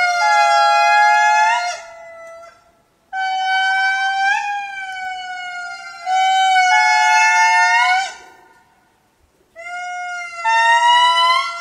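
Lemurs giving long, drawn-out tonal calls, two voices overlapping, each call held a second or more and stepping up in pitch near its end. There are three bouts, with short breaks after about two seconds and again after about eight seconds.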